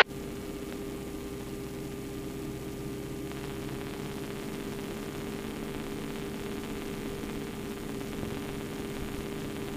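Steady hum and hiss on a Yak-52's cockpit intercom feed, with the drone of the aircraft's radial engine muffled beneath it, running at reduced power on the landing approach. The hiss grows a little stronger about three seconds in.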